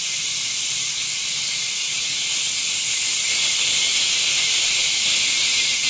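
Kitchen tap running steadily into a stainless steel sink: a constant, even hiss of falling water.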